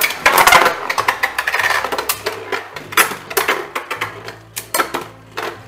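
Two Beyblade Burst QuadStrike spinning tops, Stellar Hyperion and Zeal Achilles, are ripped from their launchers and hit the plastic stadium with a spinning rattle. They then spin and clack against each other and the stadium walls in a string of sharp, irregular clicks, with quiet background music underneath.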